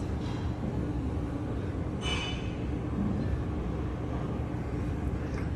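Steady low rumble of background noise, with a brief soft hiss about two seconds in.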